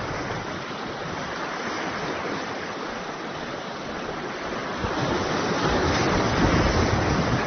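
Sea surf washing against shoreline rocks, a steady rushing wash that swells louder about five seconds in as a larger wave comes in.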